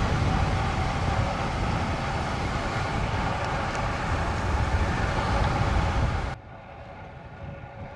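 Steady rush of wind on the microphone with tyre and road noise from a bicycle being ridden fast. It cuts off suddenly about six seconds in, leaving a much quieter background.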